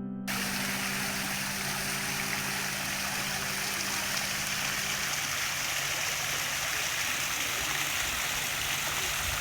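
Garden fountain water splashing and falling steadily.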